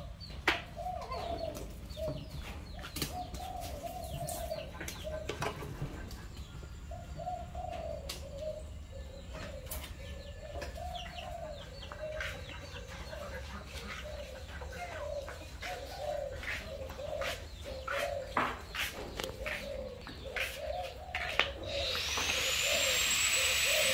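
Doves cooing over and over in short, low, rising-and-falling calls, with scattered clicks and knocks. About 22 seconds in, a steady hiss starts.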